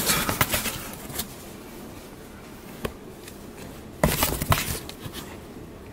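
Crinkly rustling and scuffing of a plastic bag and cardboard box being handled: a burst in the first second, a single tap near the middle, and another burst about four seconds in.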